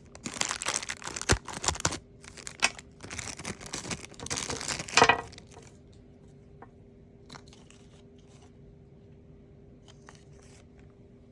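Plastic toy packaging being torn open and crinkled for about five seconds, loudest just before it stops. A few faint clicks from handling follow.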